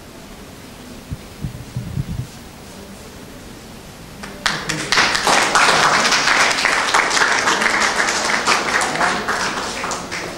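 Group of people applauding, breaking out about four and a half seconds in and tapering off near the end. A few soft low thumps come before it.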